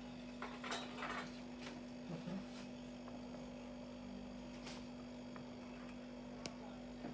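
Steady low electrical hum in a quiet room, with a few faint short clicks and taps as a plastic spoon is handled against a bowl of pancake batter.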